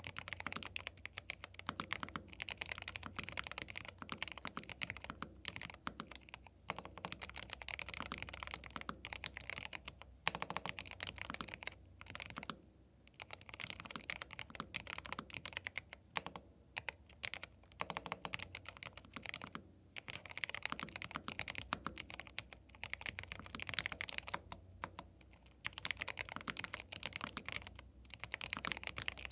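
Typing on a YUNZII B75 Pro, a gasket-mounted 75% mechanical keyboard with Milk linear switches: a fast, dense run of keystrokes with a couple of brief pauses.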